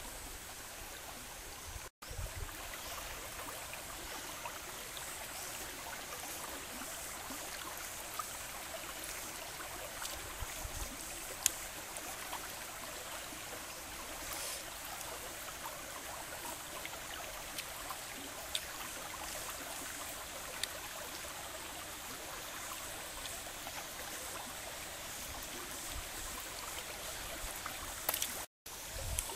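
Shallow stream running over rocks, a steady, even rush of water, with a few faint clicks.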